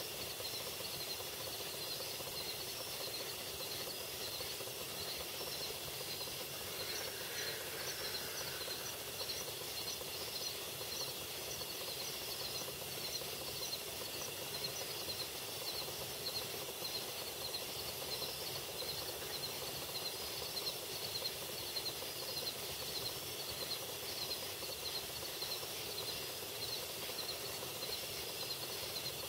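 An unidentified animal calling outdoors: a long, regular series of short high chirps, about two a second, over a steady background hiss from the camera.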